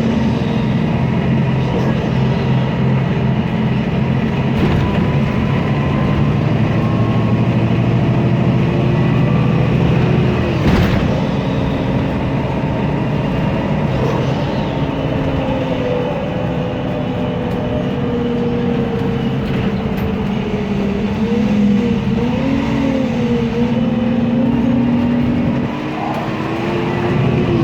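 MAN Lion's City city bus running under way on its CNG MAN E2876 engine: a steady engine drone, with whining tones that rise and fall as the bus changes speed in the second half. A single sharp crack about eleven seconds in.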